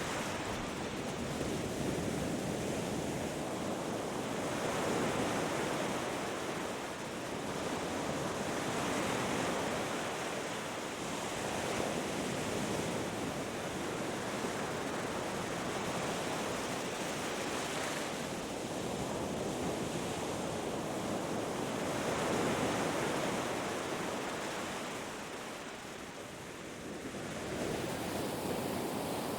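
Ocean surf washing on a beach: a continuous rushing sound that swells and eases every few seconds, with a quieter lull near the end.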